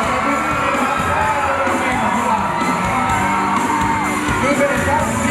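Live pop band performance with drums and guitar, amplified through the stage PA, with fans in the crowd whooping and cheering over the music.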